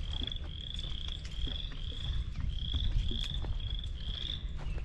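Chorus frogs calling: a steady run of short, repeated trills, two or three a second and overlapping, that stop shortly before the end as the frogs fall silent at someone's approach.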